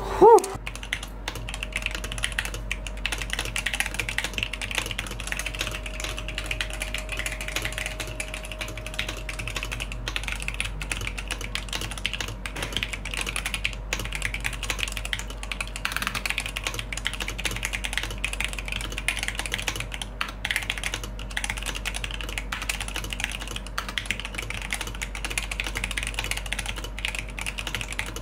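Fast, continuous typing on a Cyberboard custom mechanical keyboard with tactile C³ Kiwi switches on an aluminum plate: a steady, dense stream of clacky keystrokes at typing-test speed. There is one short, loud blip right at the start.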